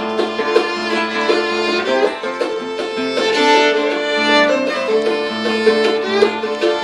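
Acoustic bluegrass trio playing an instrumental passage: fiddle carrying the melody over a strummed archtop guitar and a picked banjo.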